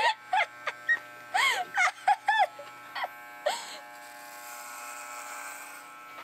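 Corded electric hair clippers buzzing steadily, with a higher rasp in the second half as they cut through hair. Short bursts of laughter over the first few seconds.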